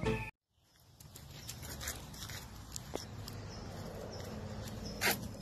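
Music cuts off abruptly at the start, followed by a moment of dead silence. Then a faint, even outdoor background with a few soft clicks, and one short, sharp sound near the end.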